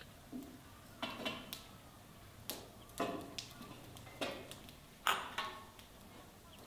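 Enamel kettles clunking and clinking as they are set down and shifted on a wooden shelf: about five separate metallic knocks, each ringing briefly.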